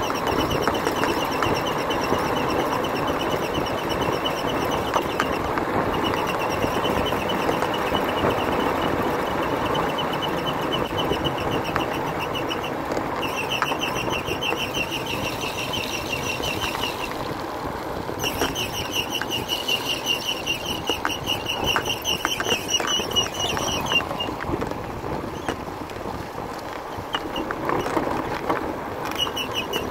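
Motorbike engine running with road and wind noise as it rides along. A high, rapidly pulsing buzz above it starts and stops several times.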